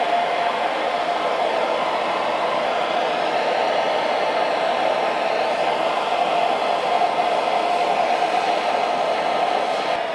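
Hose-fed gas hand torch burning with a steady hiss, its flame heating a metal branding stamp. The hiss starts suddenly and holds at an even level.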